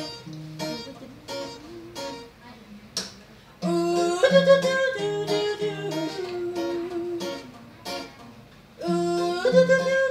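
Acoustic guitar picking a steady repeated pattern. About three and a half seconds in, and again near the end, a louder held melody line joins it.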